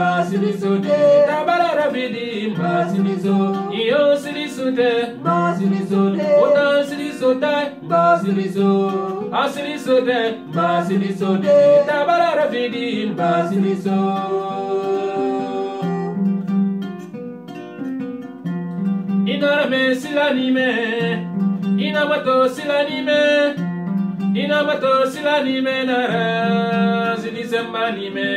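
Kora played with a low plucked figure that repeats about every second and a half, under singing of a Susu song. The voices drop out for a few seconds past the middle, leaving the kora alone, then return.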